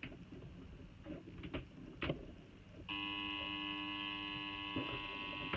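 A couple of faint clicks as the plug goes in, then, about three seconds in, a faulty 19 V laptop power adapter under load gives a steady, high-pitched electrical whine made of several tones. The adapter is putting out only about 16–17 V instead of 19 V, and the repairer suspects that the noise comes from its transformer.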